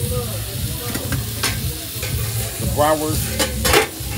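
Food frying: a steady sizzle over a continuous low hum, with a few sharp clicks about one and a half seconds in and again near the end.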